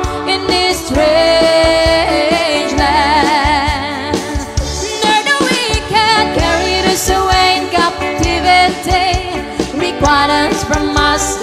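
An Ilocano waltz (balse) sung with band accompaniment: a voice holding long notes with a wavering vibrato over a steady bass and backing instruments.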